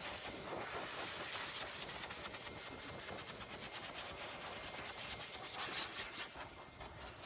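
Strong wind rushing in a steady hiss, with a short louder gust about six seconds in.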